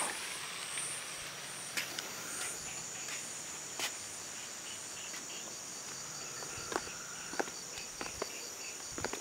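Night insects, crickets among them, chirring steadily in a high, even drone, with a few scattered short clicks.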